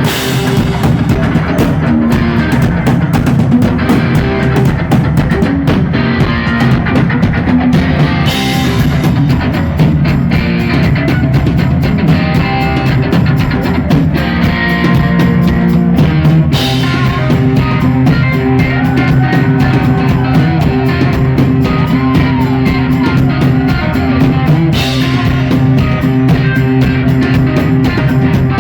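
Loud live rock played by a duo, an electric guitar and a drum kit together.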